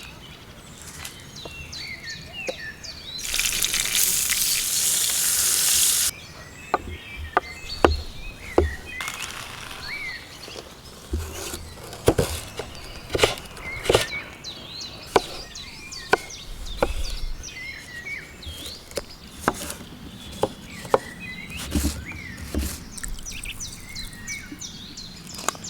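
Birds chirping throughout. Near the start there is a loud, steady hiss lasting about three seconds. After it come irregular sharp knocks of a knife chopping on a cutting board.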